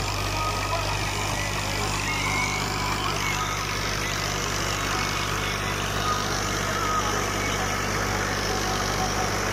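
New Holland Fiat 480 tractor's diesel engine running steadily under load while pulling a working rotavator through stubble, an even, unbroken engine note with the rotavator churning soil beneath it.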